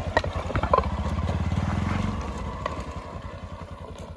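Bajaj Pulsar NS200's single-cylinder engine pulling away over loose rocky ground, fading steadily as the bike moves off, with a few sharp clicks in the first second.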